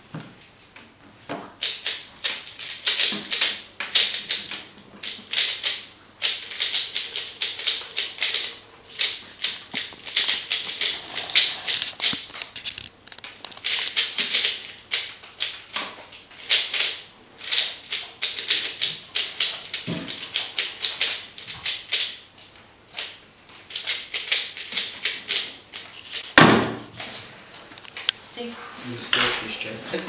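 A 3x3 speedcube being turned very fast by hand, a dense run of quick plastic clicks and clacks through a roughly 26-second speedsolve. Near the end comes a single louder knock as the hands slap down on the stackmat timer to stop it.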